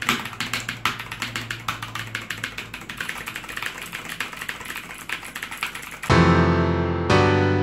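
Fast typing on a Redragon K567 RAHU mechanical gaming keyboard: a rapid, dense run of key clicks. About six seconds in it gives way to music, a loud sustained piano-like chord, with a second chord struck about a second later.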